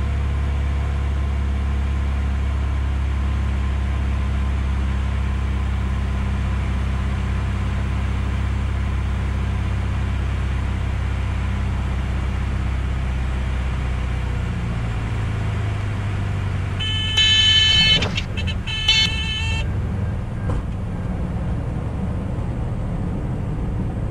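Single-engine Piper Arrow heard from inside the cockpit, its engine running steadily on final approach, the drone dropping away a little past halfway as power comes off for landing. About three seconds later the stall warning horn sounds twice over some two and a half seconds, as expected when the plane is held off and stalls onto the runway, then the rumble of the landing roll.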